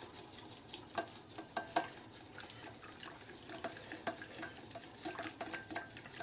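A whisk beating a liquid marinade in a small bowl: a rapid, uneven run of light clicks and taps as it strikes the bowl, with a few louder knocks between about one and two seconds in.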